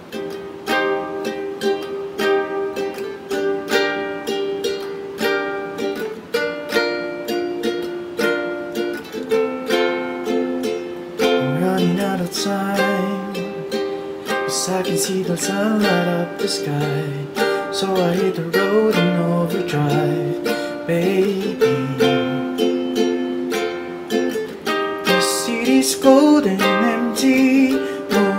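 Handmade A.Cura Custom ukulele strummed in chords as a song's instrumental intro, in a small room. About twelve seconds in, a low voice joins, humming a melody over the strumming.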